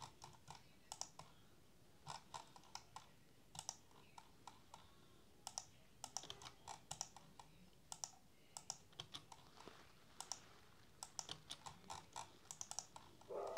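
Faint, irregular clicking of a computer mouse and keyboard, often two clicks in quick succession.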